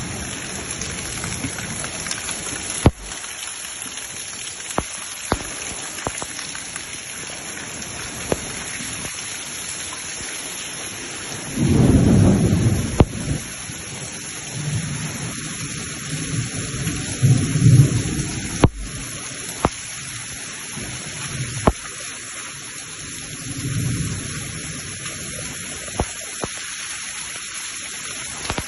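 Heavy rain pouring steadily, with water rushing through a flooded street. Thunder rumbles about twelve seconds in, again a few seconds later, and more faintly later on. A few sharp knocks cut through the rain.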